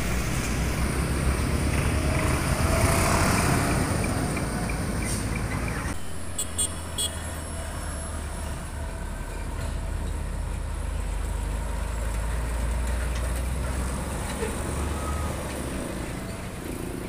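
Heavy diesel trucks and traffic at a road junction: road noise and engine rumble. About six seconds in, the sound cuts abruptly to a steadier low diesel rumble as a container truck pulls through.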